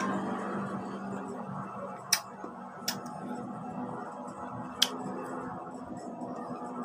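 Chewing crisp, unripe Indian mango: three sharp crunches, about two seconds in, just under three seconds in, and near five seconds in, over a steady low background hum.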